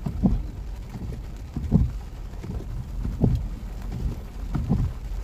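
Car windshield wipers thumping about every second and a half as they sweep, heard inside the cabin over rain and the car's steady low rumble.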